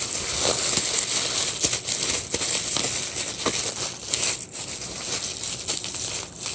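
Mail packaging crinkling and rustling as it is handled and pulled at to get it open, with scattered small clicks and crackles.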